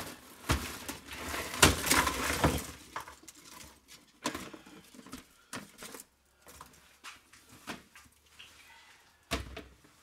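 Tangled copper wire scrap tipped out of a plastic crate onto a workbench: a dense rattling clatter lasting about two seconds, followed by scattered knocks and bumps, with a sharper knock near the end.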